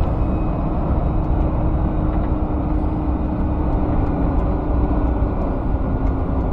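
Tanker truck driving on the road, heard from inside the cab: a steady drone of engine and road noise with a constant low hum.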